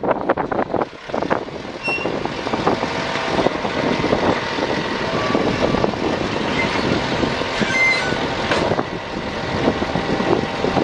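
Hino side-loader refuse truck with a Raptor body, its diesel engine running while the automated side arm reaches out and grabs a wheelie bin. Wind gusts buffet the microphone in the first couple of seconds.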